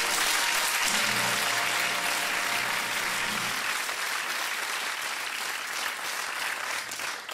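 Studio audience applauding, easing off slightly near the end.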